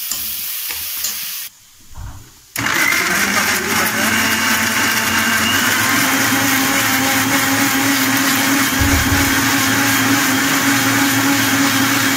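Masala sizzling in a kadai for about the first second and a half. Then, after a short quiet break, a Philips mixer grinder starts about two and a half seconds in and runs steadily with a loud motor whine, grinding tomatoes into puree.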